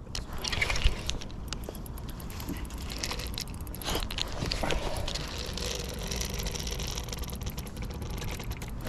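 Hands fumbling right against the camera microphone: rustling and knocking, with many irregular sharp clicks. The strongest knock comes about a second in.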